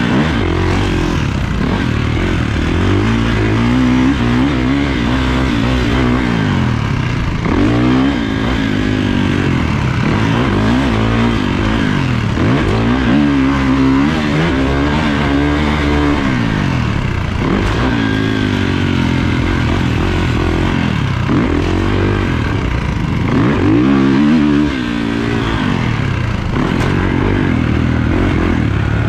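Kawasaki motocross bike's engine, heard close up from the bike, revving hard and dropping away over and over as the rider accelerates, shifts and backs off for corners.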